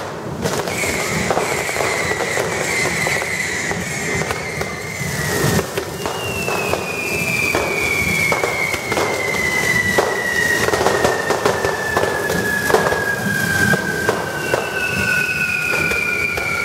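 Carretilles, the spark-spraying fireworks carried on poles at a correfoc, make a dense, steady fizzing hiss. Over it run long whistles that slide slowly downward in pitch, one after another, with scattered sharp cracks and pops.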